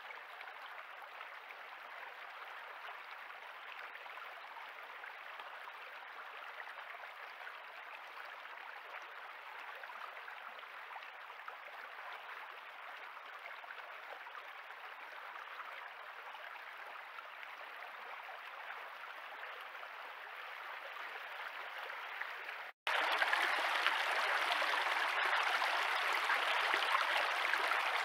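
Shallow stream running, a steady rush of water. About three-quarters of the way through it cuts out for an instant and comes back louder and fuller.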